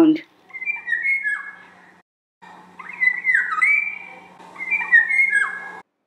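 Golden oriole's fluty whistled song: short phrases of clear whistles, several notes sliding down in pitch, in two stretches with a brief break about two seconds in. Faint chirps of other birds sound higher up.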